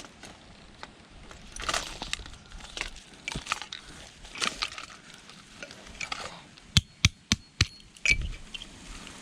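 An air conditioner's contactor being broken open for its contacts: scattered clicks and clinks, then four sharp snaps in quick succession about seven seconds in, and a knock near the end.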